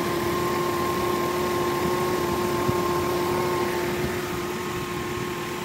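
Truck engine idling steadily after being jump-started from a lawnmower battery, with a constant whine over the running.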